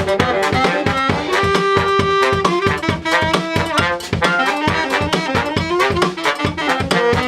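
A four-piece brass band playing a tune: sustained horn melody lines over a low bass line, with a steady beat of percussive strokes.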